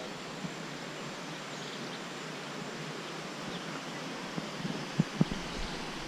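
Steady outdoor background noise of wooded countryside, an even hiss with no clear single source, broken by a few soft low thumps near the end.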